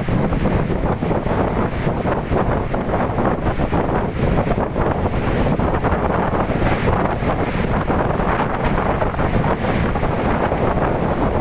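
Strong gusting wind blowing hard and buffeting the microphone, loud and unbroken throughout.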